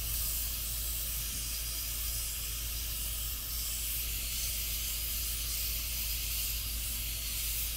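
Afghan kazan pressure cooker hissing steadily as steam vents from its lid valve: the cooker is up to pressure over the coals. A low steady hum sits underneath.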